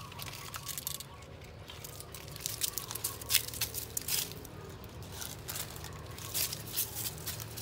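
Dry fallen leaves crackling and rustling underfoot, as irregular short crackles with a sharper one about three seconds in.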